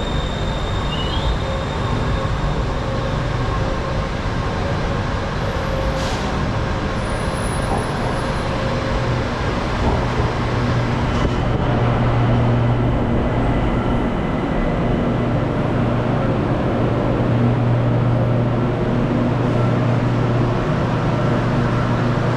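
Steady running noise of a vehicle in motion, a continuous rumble with a low hum that grows stronger about halfway through.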